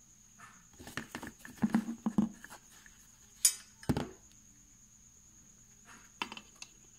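Hands working the wire connection and rubber-sleeved glass neon tube among foam packing in a cardboard box: a flurry of small clicks, taps and rustles in the first few seconds, then a few light ticks near the end.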